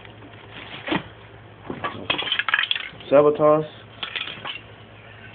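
Aerosol spray-paint cans clinking and knocking against one another as they are handled in a box, in scattered sharp metallic clicks that come in small clusters.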